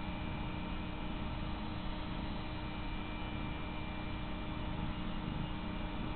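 Domestic cat purring steadily close to the microphone, over a steady electrical hum.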